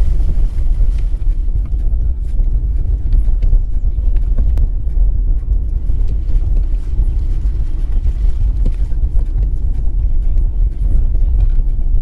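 Vehicle driving slowly along a rough dirt forest road: a steady low rumble of engine and tyres, with small scattered clicks and rattles over it.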